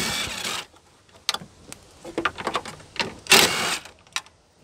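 Cordless impact driver with a 10 mm socket running in two short bursts, at the start and about three seconds in, backing off the side mirror's mounting nuts inside the door, with small metal clicks between them.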